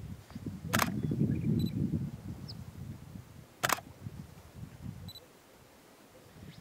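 Male greater sage-grouse courtship display: low rustling with two sharp pops, the first about a second in and the second about three seconds later.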